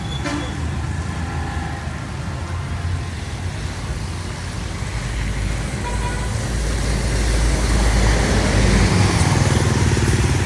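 Motorbike engine and road noise, a steady low rumble that grows louder about six seconds in.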